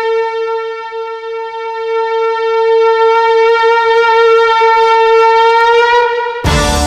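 A conch shell (shankh) blown in one long steady note that rises a little in pitch just before it stops. About six and a half seconds in, the song's instrumental music cuts in.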